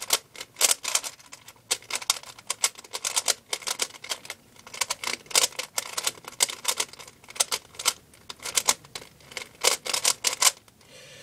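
Plastic 3x3 Rubik's cube being turned quickly by hand: runs of fast, irregular clicks and clacks from the layers snapping round, with short pauses between. The cube is being scrambled before a timed solve.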